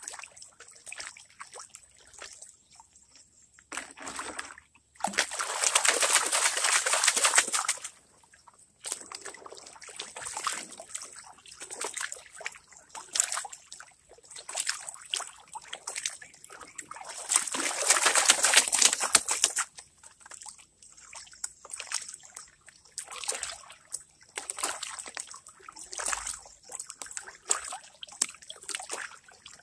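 Water sloshing and splashing in a large gold pan swirled through shallow river water, washing gravel and silt over the rim to concentrate gold. Irregular lighter sloshes, with two longer stretches of louder splashing about five and seventeen seconds in.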